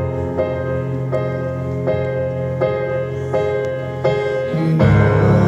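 Stage keyboard with a piano sound playing a repeated chord pattern, about one chord every three-quarters of a second over a held low bass note. Near the end a heavier bass comes in and the music gets louder.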